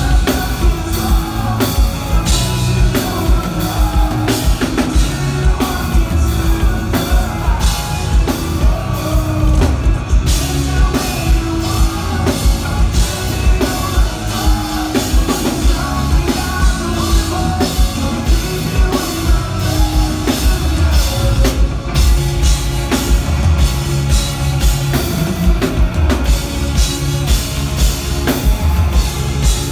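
Live rock band playing loud, a drum kit driving a steady beat of kick and snare under the guitars, with singing.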